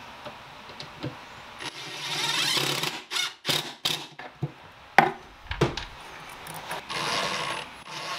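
Ryobi cordless drill driving screws into plywood pocket holes in two short runs, with several sharp knocks of wood being handled between them.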